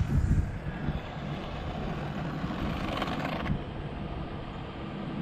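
Low rumble of truck traffic on the road, with a brief louder stretch about three seconds in.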